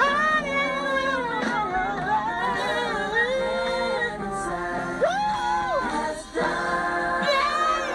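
Music with a voice singing long held notes that slide up and down in pitch, with a short break about six seconds in.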